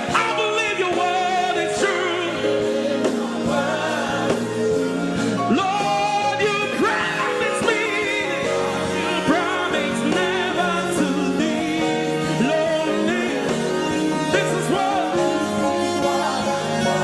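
Gospel worship song: sung vocals with wavering, held notes over steady sustained instrumental chords.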